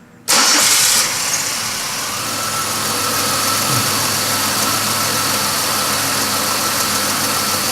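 2005 Chevy Impala's 3.4-litre V6 starting about a third of a second in, loud for under a second, then settling into a steady idle with a faint steady whine. The engine has an intermittent no-start or start-and-stall fault traced to a damaged camshaft position sensor wiring harness.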